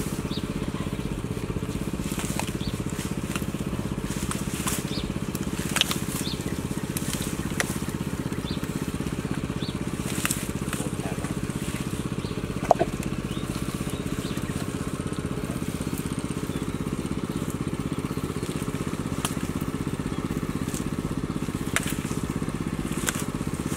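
A small engine running steadily throughout, with scattered crackles and snaps from grass and mud being pulled by hand.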